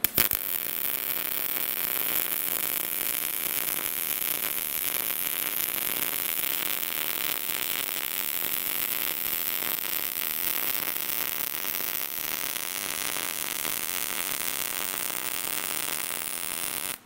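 Short-circuit MIG welding arc on 10-gauge material at 17.5 volts and 200 inches a minute wire feed, giving a steady, fast, even crackle as the wire shorts into the puddle.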